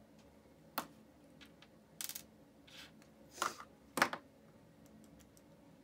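Scattered small clicks and short rattles of an RC car's plastic front suspension and wheel hub parts being handled, about five in all, the loudest about four seconds in.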